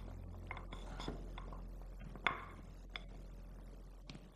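Wooden chopsticks stirring cornstarch-coated peanuts in a ceramic bowl: scattered light clicks and clinks of sticks and nuts against the bowl, with one sharper knock a little past halfway.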